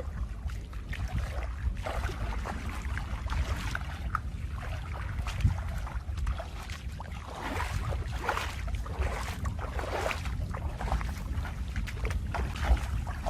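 Water splashing and sloshing in irregular bursts, busiest in the middle, over a steady low rumble of wind buffeting the microphone.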